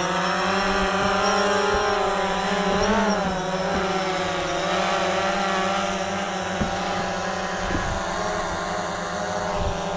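DJI Phantom quadcopter in flight, its propellers giving a steady, many-toned buzzing whine whose pitch wavers slightly as it manoeuvres.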